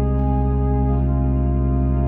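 Church organ playing a slow hymn prelude: sustained chords over a deep held bass note, with an upper voice moving to a new note about a second in.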